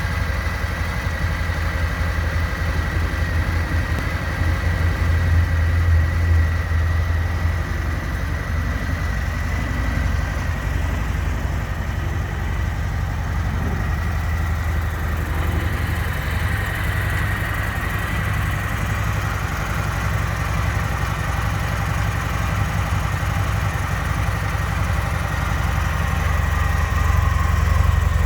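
Harley-Davidson Softail Sport Glide's Milwaukee-Eight 107 V-twin idling steadily.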